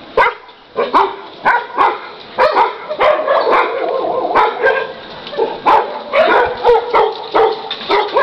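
Dogs barking over and over, a sharp bark about every half second, the barks coming thicker after about three seconds.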